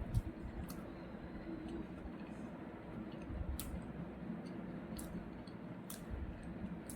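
Close-up eating sounds: a person chewing food, with scattered sharp wet mouth clicks and smacks every second or so over a faint steady hum.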